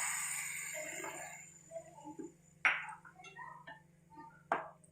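Milk going into a pan of grated carrot fried in ghee, with a hiss that fades away over the first second or so. Then come light scattered clicks and two sharper knocks of a utensil against the pan.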